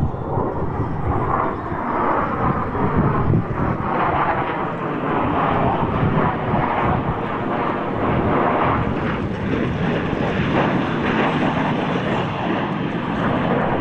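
Fixed-wing airplane engine noise, a loud steady drone with a slightly wavering pitch.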